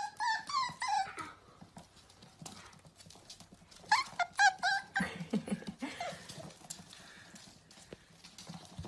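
Dachshund puppies yipping in short, high, wavering bursts, one group at the start and another about four seconds in. Their claws click and patter on a wooden floor as they scramble about.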